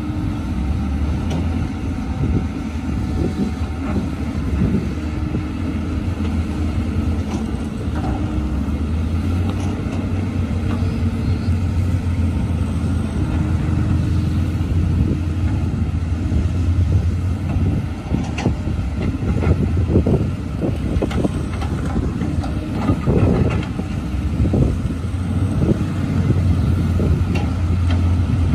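Diesel engines of Caterpillar 320C hydraulic excavators running steadily as they dig, a constant low drone. Knocks and clanks come through in the second half.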